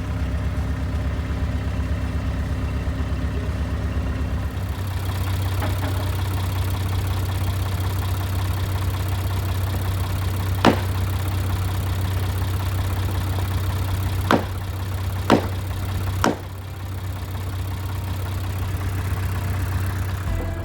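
Heavy machine engine running steadily, its note changing about four and a half seconds in, with four sharp knocks in the second half: one, then three close together.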